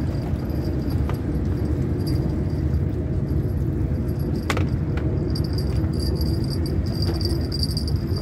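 Steady low rumble of wind buffeting the microphone on an open sea platform, with a few light clicks from fishing tackle being handled, the clearest about halfway through.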